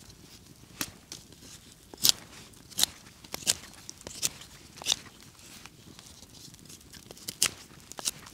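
A large knife carving a stick: a string of short, sharp shaving strokes, several of them about 0.7 s apart between about two and five seconds in, with fewer, scattered strokes before and after.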